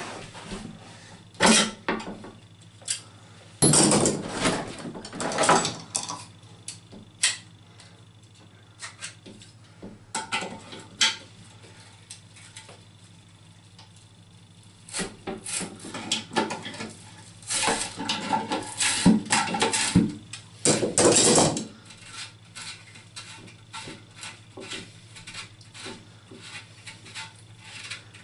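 Grips or spanner clicking and scraping on the plastic backnut under a toilet cistern's flush valve as it is worked loose, with knocks from the cistern being handled. The sounds come in irregular bursts, busiest in two spells, with quieter gaps between.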